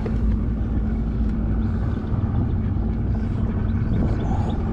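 A bass boat's outboard motor running steadily under way: a low, even hum with one steady tone.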